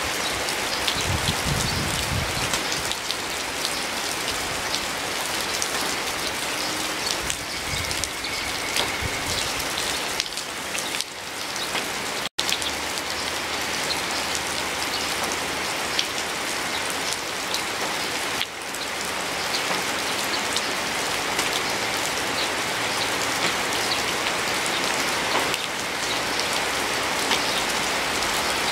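Steady rain: a dense even hiss dotted with many close, distinct drop hits. It cuts out for an instant about twelve seconds in.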